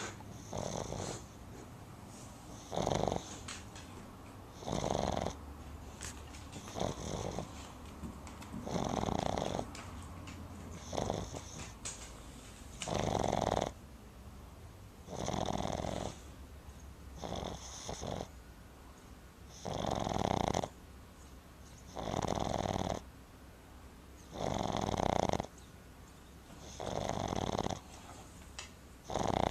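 Boston Terrier puppy snoring loudly in a steady rhythm, one snore about every two seconds.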